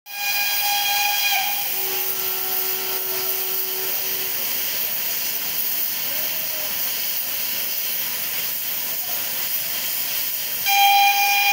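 Steam locomotive venting steam with a loud, steady hiss. A short steady whistle note sounds over it at the start and again, louder, near the end.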